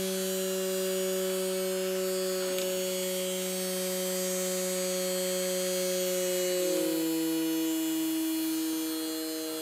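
Small brushed DC motor from a Makita FD02 cordless drill running unloaded with a steady hum. About seven seconds in its pitch drops, which is put down to the battery voltage probably dropping.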